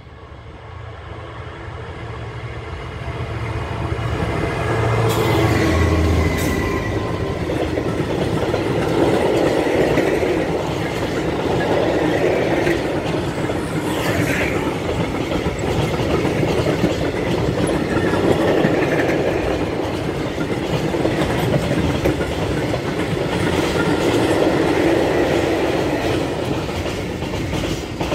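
A Class 66 diesel freight locomotive (EMD two-stroke V12) approaches and passes, its engine growing louder over the first few seconds. A long train of empty covered steel wagons then rolls by with a steady rumble and repeated knocks from the wheels.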